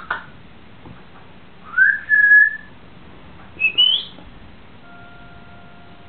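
Parrot whistling twice. The first whistle rises and then holds one note for about a second. The second, about three and a half seconds in, is shorter, higher and climbs quickly.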